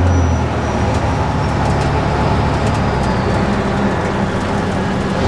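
Fire truck's engine and road noise heard from inside the cab while driving, a steady low drone that eases a little about half a second in.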